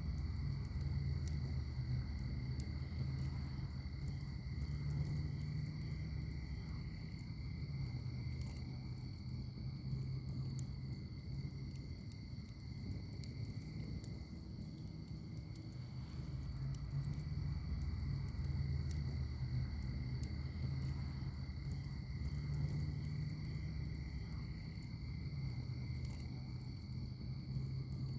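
Wood fire burning in a fire pit: a low rumble of flames that swells and eases every few seconds, with scattered small crackles and pops.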